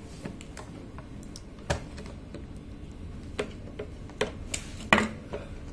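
Irregular small clicks and taps of a thin screwdriver and a CR2032 coin-cell battery against the opened plastic case of a car key fob as the battery is pried at, about half a dozen in all, with louder ones about a second and a half in and near the end.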